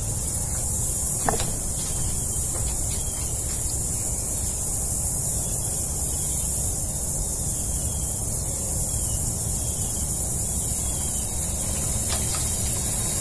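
Steady high hiss with a low rumble beneath it, broken by a faint click about a second in and another near the end, while a small electric trolling motor runs in the water under a PWM speed controller.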